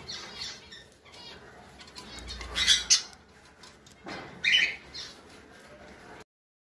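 Sun conures calling and flapping their wings, with two louder bursts about two and a half and four and a half seconds in. The sound cuts off suddenly near the end.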